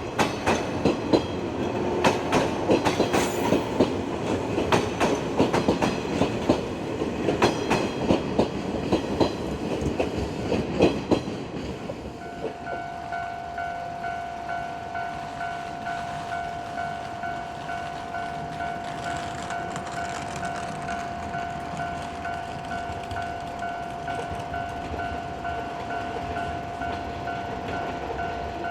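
A JR West 115-series electric train passes over a level crossing, its wheels clicking loudly over the rail joints for about the first twelve seconds. Once the train has gone, the crossing's warning bell is left ringing on by itself with a steady, regularly pulsing electronic tone.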